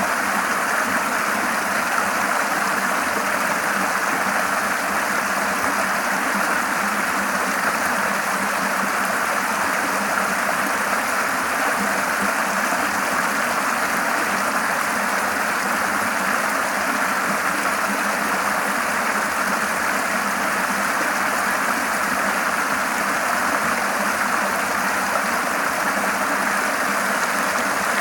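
River water flowing and rushing over rocks in a steady, unbroken stream.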